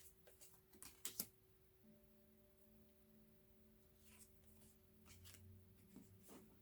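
Faint taps and slides of tarot cards being handled, with two sharper clicks about a second in, over a low steady hum.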